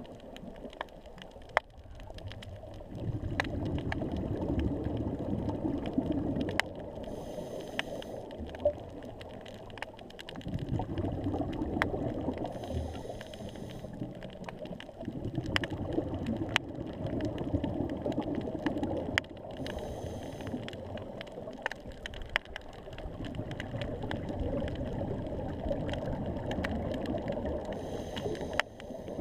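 Scuba diver breathing through a regulator underwater: a short hiss on each inhale, then several seconds of bubbling on each exhale, about four breaths in all. Scattered sharp clicks run through it.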